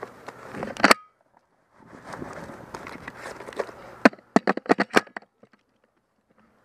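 Airsoft fire during a skirmish: a quick, irregular string of about seven sharp cracks about four seconds in, with a single loud crack near the first second, over rustling gear noise. The sound drops out to dead silence twice.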